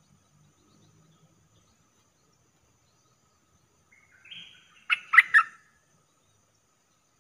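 A caged decoy bulbul giving a short song phrase: a soft warble about four seconds in, then three loud, quick notes.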